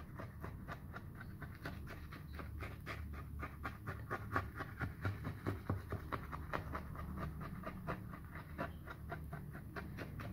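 Rapid, irregular quiet clicking and wet ticking as a thin stick is jabbed over and over into oil-soaked earth in a tin container, working the oil down into the soil, over a low steady hum.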